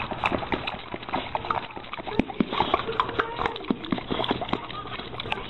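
A dog snapping and biting at a thin stream of water, its jaws clicking and the water splashing in many quick, irregular snaps.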